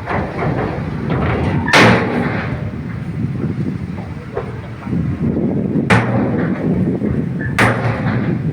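Shantui bulldozer's diesel engine running with a steady low rumble, broken by three loud sharp bangs about two, six and seven and a half seconds in, and a couple of weaker knocks between.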